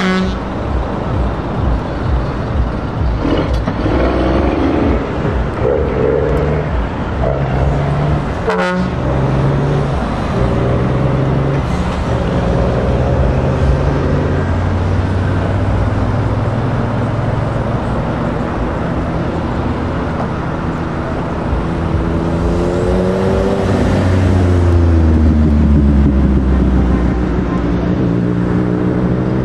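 Iveco Strator tractor unit's diesel engine pulling away and accelerating, its pitch stepping up and down through gear changes, with a swell and rise in revs about three quarters of the way through. Short horn toots sound in the first few seconds.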